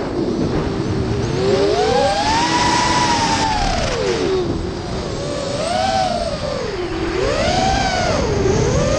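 FPV racing quadcopter's brushless motors and propellers whining, their pitch swooping up and down several times as the throttle is worked through flips and dives. Throughout there is a steady rushing hiss of wind and propwash on the onboard camera's microphone.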